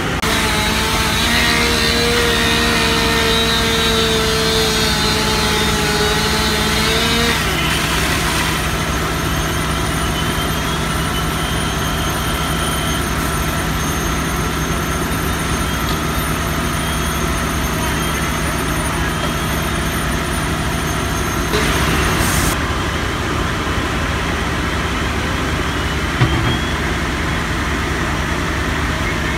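Fire apparatus engines running steadily at idle. A whining tone drops out about a quarter of the way in, a brief rush of noise comes about two-thirds through, and a sharp knock follows shortly after.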